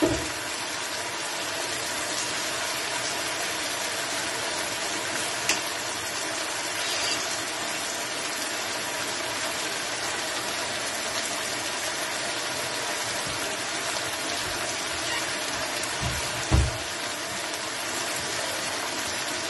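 Chicken and bell pepper fajita filling simmering in a frying pan, a steady sizzling hiss. A brief click about five seconds in and a short low thump near the end.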